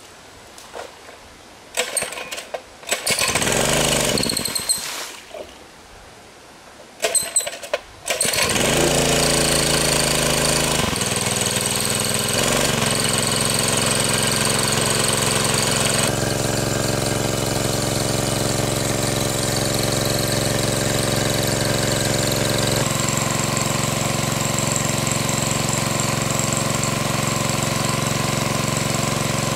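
Small petrol engine on a water pump being pull-started: an early pull sets it running for a couple of seconds before it dies away, and a second pull about eight seconds in catches. It then runs steadily, with a shift in its tone a few times, while the pump throws a gushing jet of water out of its hose.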